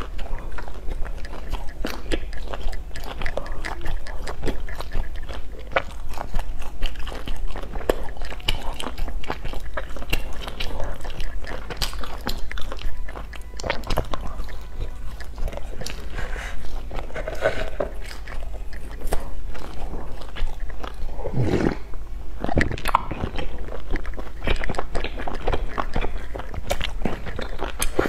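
Close-miked biting and chewing of baked pastries, a steady run of small crumbly crackles and clicks from the mouth.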